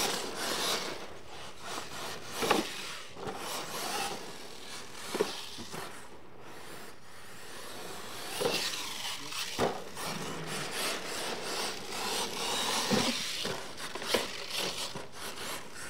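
Radio-controlled monster truck driving hard on a dirt track: tyres scrabbling and spraying dirt, broken by several sharp knocks from jumps and landings, the last near the end as the truck tumbles over beside a ramp.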